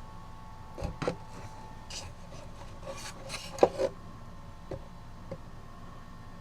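Hands handling and fitting a music box into a wooden cuckoo clock: scattered light clicks, knocks and rubbing of wood and metal parts, the loudest knock about three and a half seconds in.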